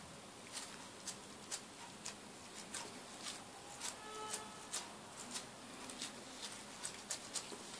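Faint, irregular soft clicks and taps of gloved fingers pinching the edges of a potato-filled piroshki shut on a countertop, about two a second. A brief faint tone sounds about four seconds in.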